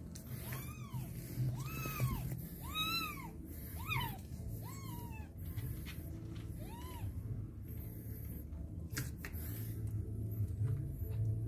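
Young kitten mewing about six times, short high calls that rise and fall in pitch, most of them in the first five seconds and a last one about seven seconds in, over faint background music.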